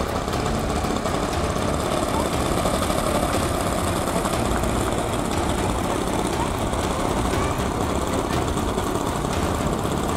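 Engine and propeller of a large radio-controlled F4U Corsair model running steadily as it touches down and taxis on grass.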